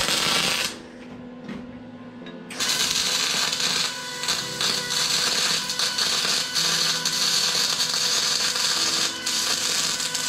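MIG welding arc crackling and hissing on steel: a short run that stops under a second in, then, after a pause of about two seconds, a longer steady run.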